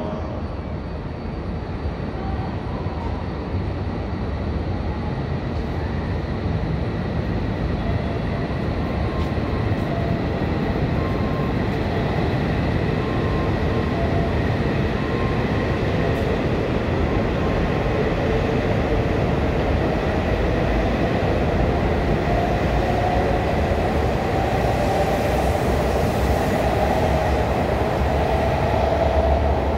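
E5 series Shinkansen pulling out of the station and picking up speed. Its running noise grows steadily louder, and a whine rises in pitch as it accelerates.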